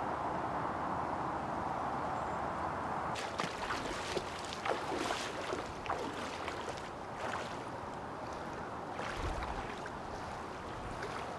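A steady rush of outdoor wind and water noise, then irregular splashing and sloshing from about three seconds in as bare feet wade through shallow floodwater, fading toward the end.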